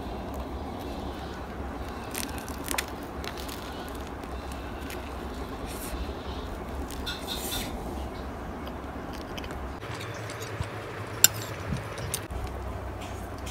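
Crackling and crunching of an oven-crisped croissant being pulled apart by hand and eaten, over a steady low hum. A sharp click about eleven seconds in is the loudest sound.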